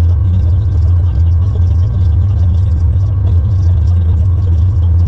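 Case IH tractor engine running steadily under load: a loud, even low rumble with faint steady whining tones above it.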